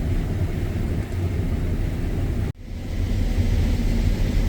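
Combine harvester running steadily while harvesting corn, a deep low rumble heard from inside the cab. The sound cuts out for an instant about halfway through and then comes back.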